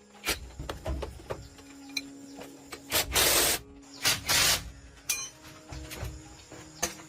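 Workshop tool work: a few loud bursts of hiss, each about half a second long, among scattered clicks and knocks.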